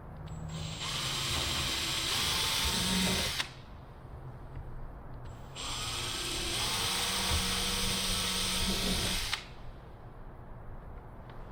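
Electric drill running in two bursts of about three seconds each, drilling screw holes through the instrument-panel plate and its mount; each burst stops abruptly.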